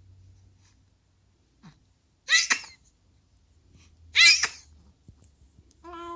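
Baby sneezing twice, about two seconds apart, with big hearty sneezes like a grown man's. Near the end comes a short pitched vocal 'uei~' call.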